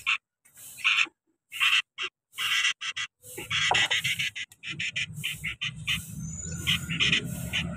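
Sooty-headed bulbul nestlings begging with short, raspy chirps, a few a second, coming faster after the halfway point. From about three seconds in, a low rustling rumble runs underneath.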